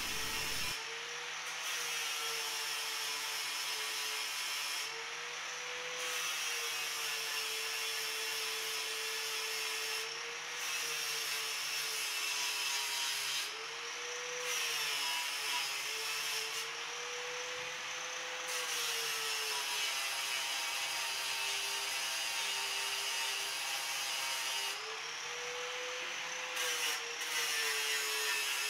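Angle grinder running on the steel shell of a water-heater tank, grinding off the black paint down to bare metal. The grinding hiss drops out a few times as the disc comes off the metal, and the motor's pitch rises a little each time.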